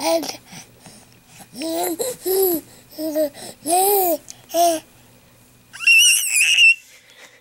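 Baby babbling and laughing in a string of about five short, arching, rising-and-falling coos, then a high-pitched squeal near the end.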